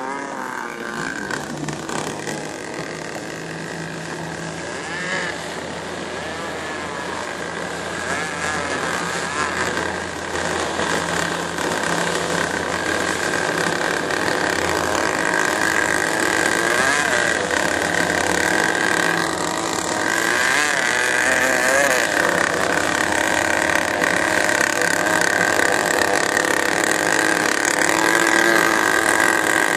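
Motorboat engine running steadily underway, with a higher whine that wavers in pitch and grows gradually louder toward the end.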